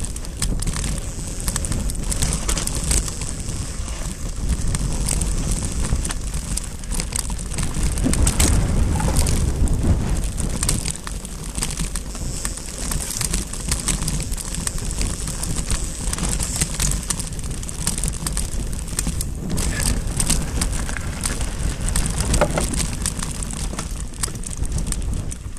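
Mountain bike riding fast down loose dirt and gravel singletrack: the tyres crunch and the bike rattles, with many quick clicks and knocks over bumps, under a low rumble of wind on the microphone.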